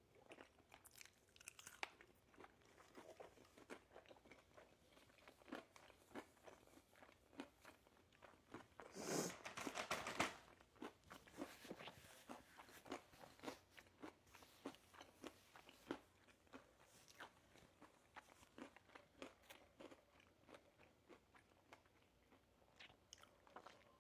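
A person biting and chewing crunchy fried chicken wings, with a steady run of small crunches and wet chewing clicks and a louder, longer crunch about nine seconds in. The sound is quiet overall.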